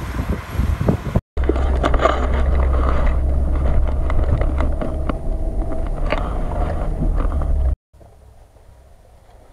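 Off-road 4x4 vehicles in floodwater. First, about a second of splashing as a Nissan Patrol wades through water. Then, from inside a vehicle's cabin, a loud steady low engine and drivetrain rumble with scattered knocks and splashes, followed near the end by a sudden drop to a much quieter faint background.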